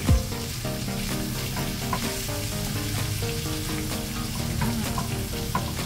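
Shredded cabbage and other vegetables sizzling steadily as they are stir-fried in a nonstick wok, a plastic spatula scraping and turning them, with one knock of the spatula at the very start.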